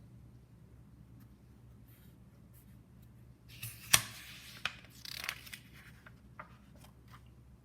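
Paper pages of a book rustling as it is handled, with one sharp tap about four seconds in, the loudest sound, and a few lighter clicks and rustles after it.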